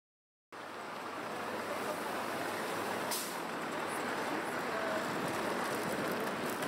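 City street traffic: a steady wash of passing vehicles that starts abruptly about half a second in, with a short hiss about three seconds in.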